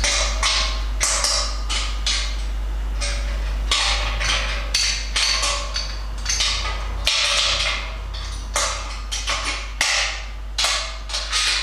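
Stainless steel tri-clover fittings being handled and clamped onto the bottom outlet of a conical fermenter as a 2-inch dump valve is fitted: a run of short, irregular metallic scrapes, clinks and knocks over a steady low hum.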